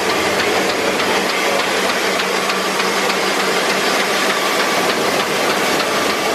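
Sheetfed offset printing press running: a steady mechanical din with light ticks through it.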